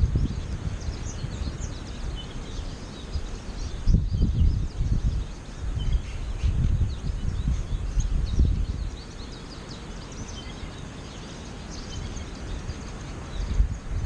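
Wind buffeting the microphone in gusts, quieter for a few seconds in the second half, over many short high chirps and twitters from a flock of American goldfinches feeding on the ground.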